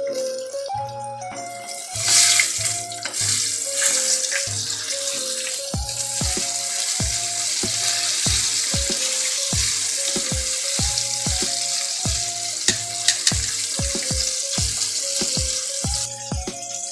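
Breaded tilapia fillets sizzling in hot oil in a skillet, the sizzle flaring up loudly about two seconds in as they are turned with metal tongs, then holding steady and dying down near the end. Background music with a steady beat plays throughout.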